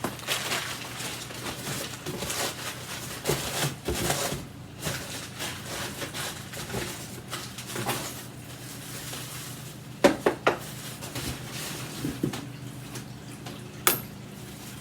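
Handling noises from unpacking vacuum cleaner parts: irregular rustling with scattered clicks and clatter, and a few sharp knocks about ten seconds in and one more near the end.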